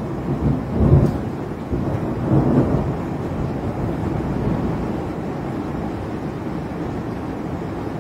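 Thunder rumbling, with swells in the first three seconds that then settle into a long, slowly fading low rumble.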